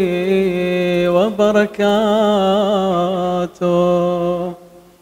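A man chanting an Arabic ziyarat prayer in a slow, melodic recitation with long held, wavering notes. The voice breaks off briefly twice and fades out about four and a half seconds in.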